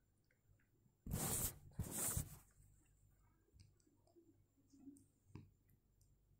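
Thin homemade maida spring roll sheets being peeled apart and handled on a steel plate: two short rustles about a second in, then a couple of faint clicks.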